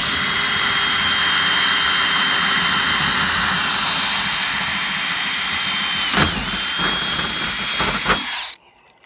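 DeWalt 20V MAX cordless drill running steadily at speed as its bit bores a hole through the car's painted hatch panel, with a steady high motor whine. The speed dips briefly about six seconds in, and a few knocks come near the end before the drill stops.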